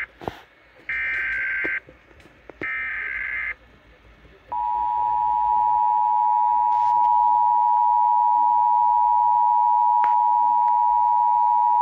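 Emergency Alert System tones: two bursts of the screechy SAME digital header, each about a second long, then after a short gap the steady two-tone EAS attention signal holding for about eight seconds. Together they open a broadcast alert, here a Local Area Emergency for a confirmed tornado.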